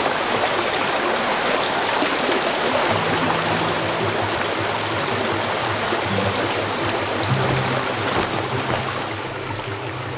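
Running water of a forest stream, a steady rushing hiss, over background music with low held notes.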